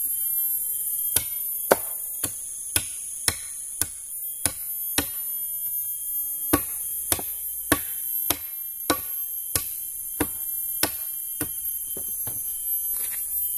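Wood being chopped with a blade: a steady series of sharp chopping blows, about two a second, with a short pause partway through, stopping near the end.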